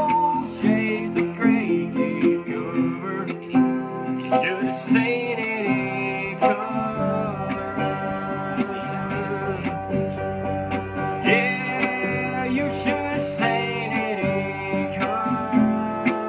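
Acoustic guitar strummed and picked in a country song, with a sliding melody line over the chords.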